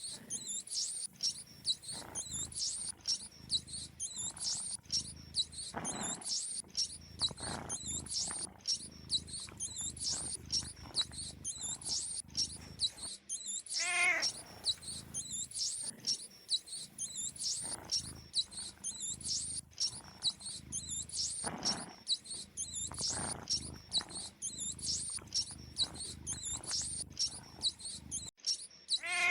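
Mice squeaking in a fast, constant high-pitched twitter over a low, pulsing cat-like purr, with a falling cat call about fourteen seconds in. The whole mix repeats as a loop about every fifteen seconds.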